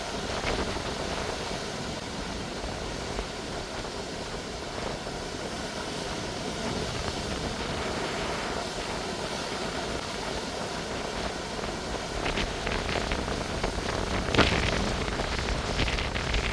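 Ocean surf breaking on a rocky shore: a steady rush of water with a louder crash near the end.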